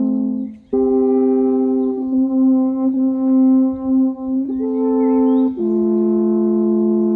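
Several alphorns playing long held notes together in harmony. There is a brief break for breath about half a second in, and then the chord moves to new held notes every second or two.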